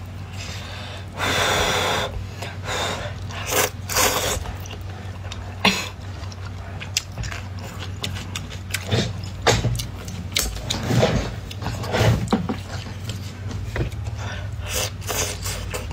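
Noodles slurped off chopsticks, with a long drawn-in slurp about a second in, followed by repeated short slurps, chewing and wet mouth clicks. A steady low hum runs underneath.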